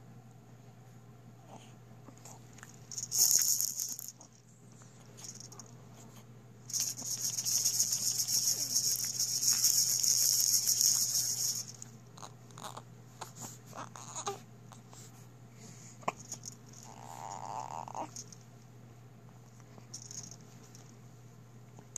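Baby's clear plastic rattle ball filled with coloured beads, shaken: a short burst about three seconds in, then fast continuous rattling for about five seconds from about seven seconds in.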